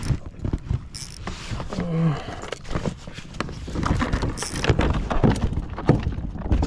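Irregular knocking, clattering and rattling of a landing net, tackle and a freshly caught yellowtail being handled aboard a kayak, with a brief murmur from a person about two seconds in.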